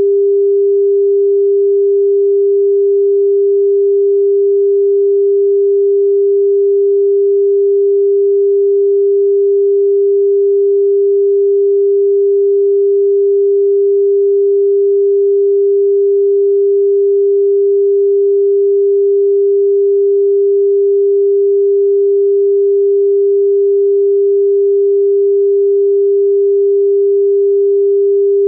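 A steady electronic pure sine tone pitched at 399.471 Hz, one unwavering note with no overtones.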